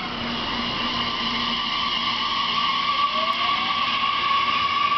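JR Kyushu 813 series electric train's traction inverter whining as the train starts to pull away: a steady high whine with several higher tones over it, and a faint rising tone about three seconds in.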